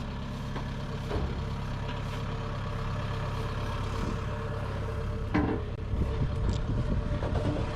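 A heavy vehicle engine running steadily, with a few short knocks about a second in and again around five and a half seconds in.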